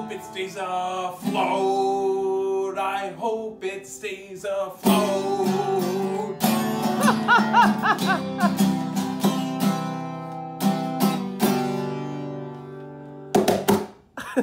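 Man singing to a strummed steel-string acoustic guitar, his voice wavering on held notes partway through, with a few sharp strokes on the guitar near the end.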